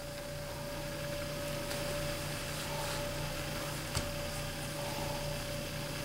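HP Mini 110 netbook's cooling fan and hard drive running steadily as it boots, a constant hum with one steady tone. A single light click about four seconds in.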